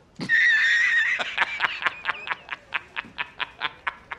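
A man's hearty, open-mouthed laugh: a long high opening cry, then a quick string of short 'ha's, about five a second.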